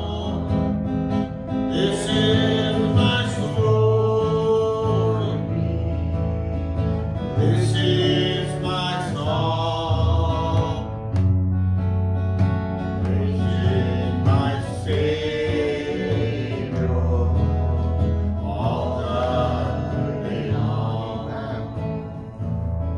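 Gospel worship music: voices singing over guitar and a bass line.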